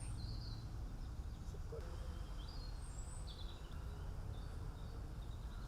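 Short bird chirps, several in a row about a second apart, over a steady low rumble of outdoor background noise.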